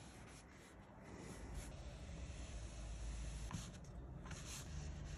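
Flat bristle paintbrush scrubbing paint onto canvas: a series of short, faint scratchy strokes over a low rumble.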